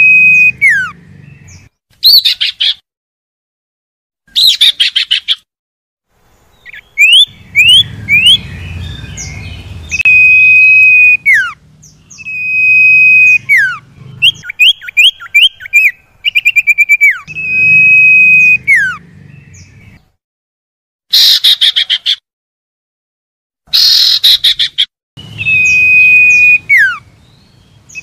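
Common iora (sirtu, cipoh) song played as a lure to set a silent caged iora calling: long whistles held on one pitch that slide down at the end, a quick run of rising notes, and short, harsh chattering bursts, the loudest two a little past two-thirds through, with brief silent gaps between phrases.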